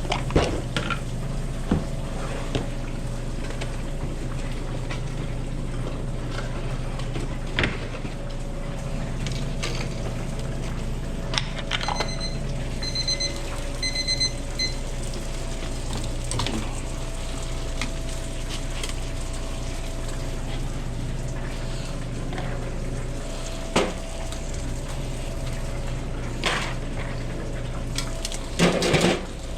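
Commercial kitchen noise: a steady equipment hum with scattered utensil clicks and clatters, a few knocks near the end, and a short run of high electronic beeps in two quick groups about twelve seconds in.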